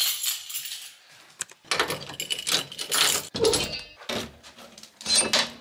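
Door lock and handle rattling and clacking in a string of short bursts as a door is opened.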